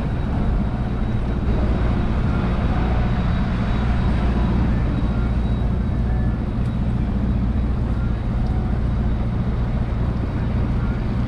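Boat's outboard motor running steadily under way, with the hiss of water and wind over it.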